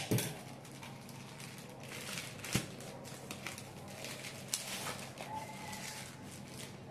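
Plastic mailer bag and its packing wrap rustling and crinkling as they are handled, with irregular sharp crackles and taps; the loudest comes just after the start and another about two and a half seconds in.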